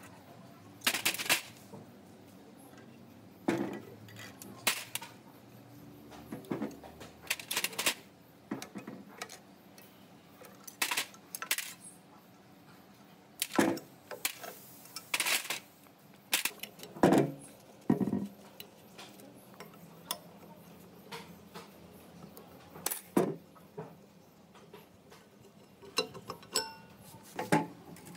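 Metal tools and parts being handled: sharp clinks and knocks at irregular intervals, a few seconds apart, some in quick pairs.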